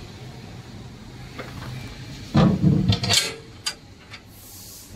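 The slide-bolt latch on a small aluminium console storage door is drawn back and the door swung open. A knock and a short run of metallic clicks and rattles come about halfway through, over a low background hum.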